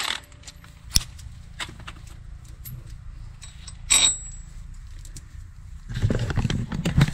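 Metal tool-handling noises at a car's wheel hub: a sharp click about a second in, a ringing metallic clink about four seconds in, then a stretch of clattering near the end.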